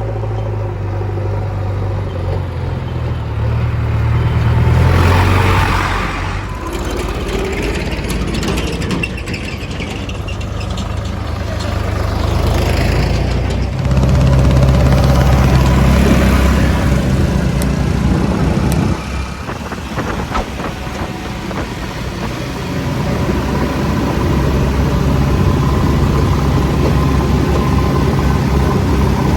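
JCB 3DX backhoe loader's diesel engine running steadily. Its revs and loudness rise and drop back a few times, about 4 to 6 seconds in, again from about 14 to 18 seconds, and once more from about 22 seconds. Some rougher noise comes and goes over the engine early in the stretch.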